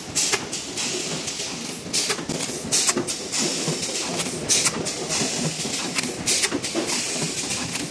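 Automatic blister packing machine running, a steady mechanical clatter broken by short, sharp strokes every second or two as its forming and sealing stations cycle.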